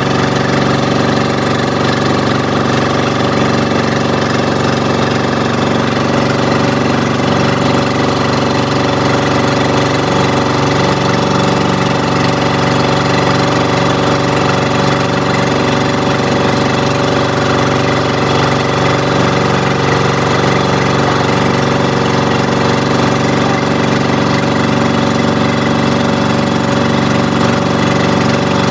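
Engine of an outrigger banca boat running steadily under way: a loud, even drone that holds one pitch without revving up or down.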